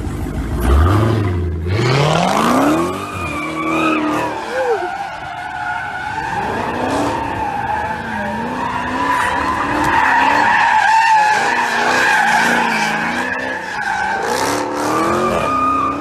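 A car engine revs up sharply, then the tyres squeal on and on as the car skids through a turn, the squeal wavering in pitch over the engine note.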